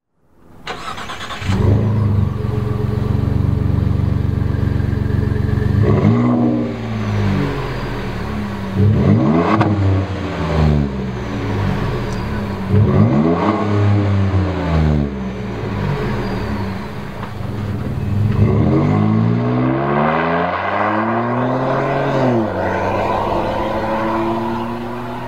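Ford F-150's 3.5L twin-turbo EcoBoost V6 through a Flowmaster American Thunder cat-back exhaust with a Super 40 muffler and dual tailpipes. It starts up about half a second in and idles steadily. Then it is blipped three times, each rev rising and falling. Near the end it accelerates away in a longer climb with breaks in pitch.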